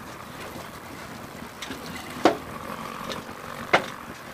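Steady wind and road noise on the microphone of a moving motorcycle, an even hiss, with two short knocks about a second and a half apart, a little past halfway through.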